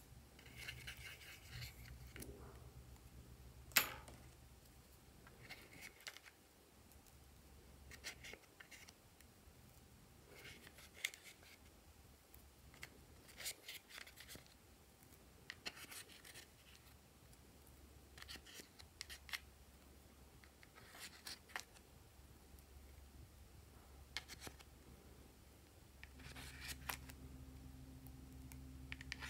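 A small tool scraping pressed gold eyeshadow out of a compact palette and smearing it onto glue: faint, scattered scratches every second or two, with one sharp click about four seconds in, over a low hum.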